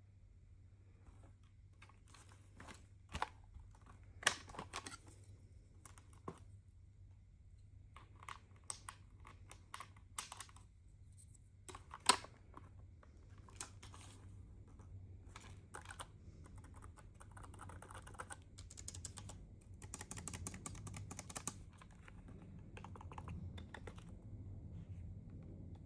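Keys of a new Anko multimedia keyboard clicking irregularly as it is handled and tried out, with a sharper knock about halfway through and a denser run of rapid key presses near the end.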